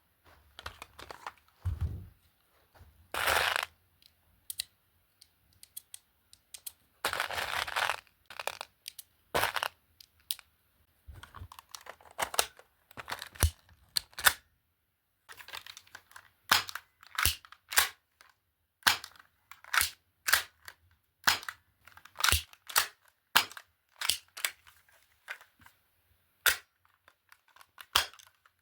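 Walther P99 BB pistol being fired, a series of sharp cracks, about a dozen in the second half at roughly one a second, with earlier clicks and two longer rasping handling noises in the first part.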